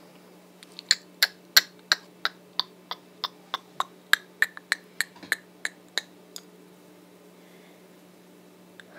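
A quick series of sharp mouth clicks close to the microphone, about three a second for some five seconds, then they stop.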